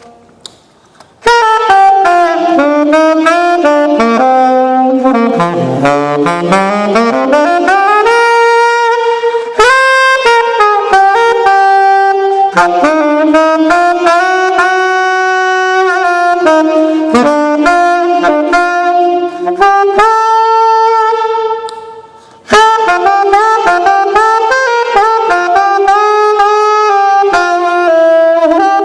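1927 Martin gold-plated saxophone played solo, one melodic phrase after another. It starts about a second in, and there is a short break about three quarters of the way through. Around five or six seconds in, a phrase slides down to a low note and climbs back up.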